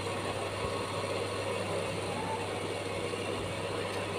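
Cooktop heating a steel pot of hibiscus tea: a steady low hum over an even hiss.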